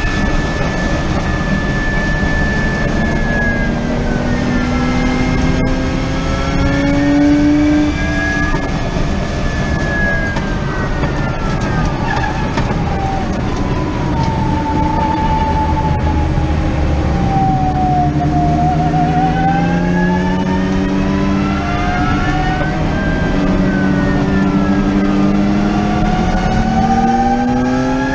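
Hydrogen fuel-cell electric race car's electric drivetrain whining, its pitch falling and rising with road speed: a deep drop as the car brakes for a corner about two thirds of the way through, then climbing as it accelerates. Steady wind and road noise in the cockpit lie underneath.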